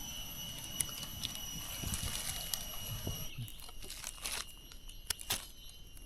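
Scattered crackling and rustling of dry forest-floor litter as mushrooms are picked and the ground is stepped on, with a steady high-pitched whine that cuts off about three seconds in.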